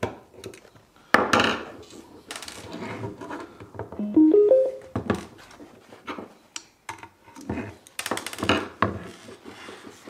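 Handling a metal switch-box enclosure on a wooden bench while unscrewing it: a series of knocks, clatters and scrapes as the screwdriver and box are moved and set down. A short run of rising piano-like notes sounds a few seconds in.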